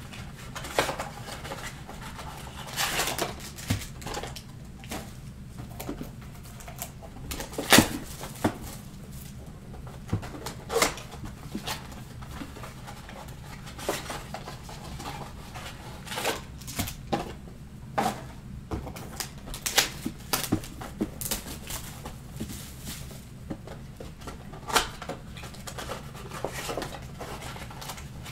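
Hands handling and unwrapping trading-card blaster boxes: irregular crinkling of plastic shrink-wrap with sharp crackles and taps of the cardboard boxes, over a low steady hum.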